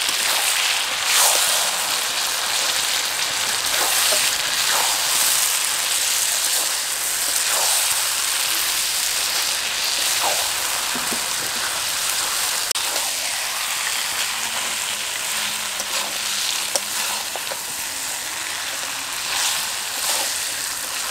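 Raw goat meat sizzling steadily in hot oil and ground-spice masala in a metal kadai, stirred with a spatula that scrapes the pan in short strokes now and then: the meat being seared (koshano) in the masala.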